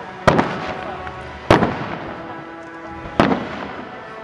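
Aerial firework shells bursting: three sharp bangs roughly a second and a half apart, each trailing off in a short echo.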